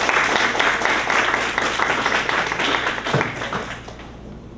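A small audience applauding, the clapping dying away about four seconds in.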